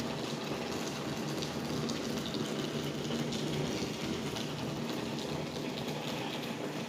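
Light drizzle falling: a steady hiss of rain with faint scattered drop ticks.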